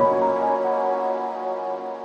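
Soft background music: a held chord slowly fading away.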